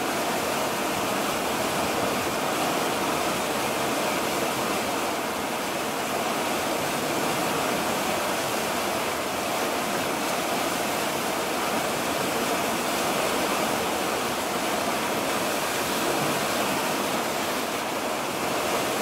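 Steady, even rushing of sea water streaming along the hull of a moving ship.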